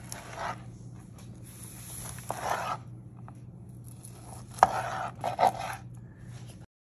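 A long knife slicing through a rack of smoked ribs on a cutting board: several separate sawing cuts through the crusty bark and meat, with one sharp knock of the blade a little over halfway through.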